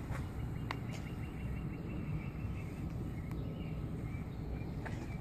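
Steady outdoor background noise, mostly a low rumble, with a faint click about a second in.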